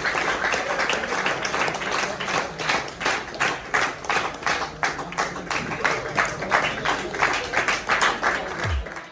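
Small crowd applauding, with individual hand claps standing out, at times falling into a rough rhythm of about three claps a second. A deep falling bass sound comes in just before the end.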